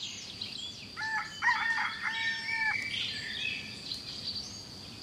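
A rooster crowing once, starting about a second in: a few short notes and then a long held one, with small birds chirping around it.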